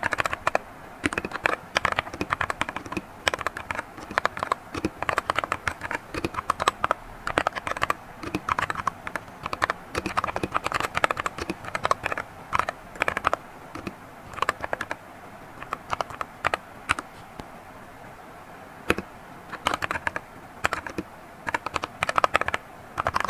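Fast typing on a compact mechanical keyboard: a dense run of key clacks, with a couple of brief pauses past the middle.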